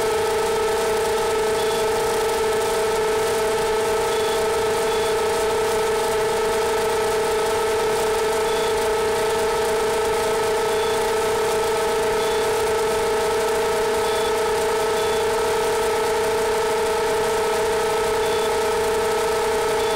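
Motors and propellers of an iFlight XL7 quadcopter whining at a steady pitch while the drone climbs, heard through its onboard camera. The tone holds several fixed pitches and never changes.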